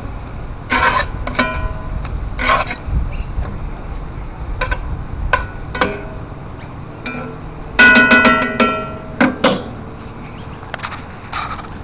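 Metal spatula clinking and scraping against a cast-iron frying pan while turning food, in scattered knocks with a short metallic ring. The loudest burst of clatter comes about eight seconds in, a quick run of clanks.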